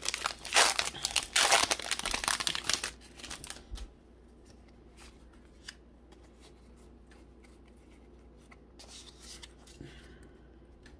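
Foil trading-card booster pack wrapper crinkling loudly as it is torn open, for about the first three seconds. Then quiet, with faint light clicks as the cards are handled.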